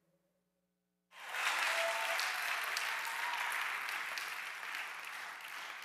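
Audience applauding, starting suddenly about a second in and slowly dying down.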